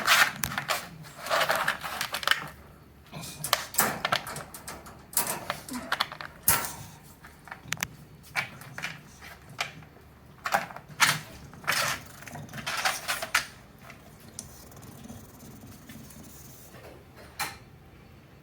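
British bulldog snoring: raspy, rattling snorts with its breaths, coming in bursts every second or two, then dying down to one last snort near the end.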